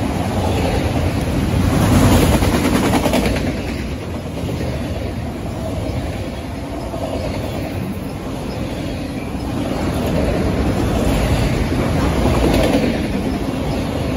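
Freight train of autorack cars rolling past close by: a steady rumble of steel wheels on the rails with clickety-clack from the wheels. It swells about two seconds in and again near the end.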